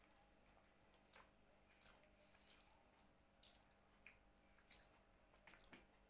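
Faint, soft wet squishes and clicks of eating by hand: fingers working biryani rice on a plastic tray, and chewing. About a dozen short, scattered sounds, the sharpest about a second in and just before the five-second mark.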